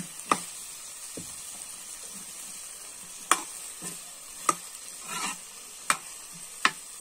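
A metal ladle knocks and scrapes against a kadhai as potato-and-pea sabzi (aloo matar) is stirred. About six irregular knocks sound over a steady sizzle of the vegetables frying.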